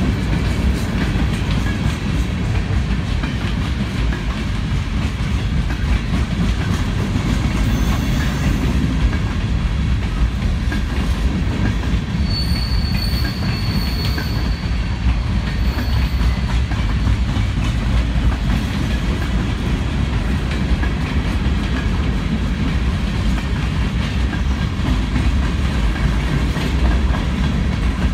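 Steel wheels of a passing freight train's covered hoppers and refrigerator boxcars running over the rails, a loud steady low noise. A thin high wheel squeal comes in briefly about halfway through.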